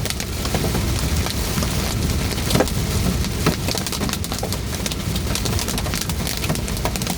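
Heavy rain pelting a moving car, with scattered sharper hits, over the steady low rumble of the car driving.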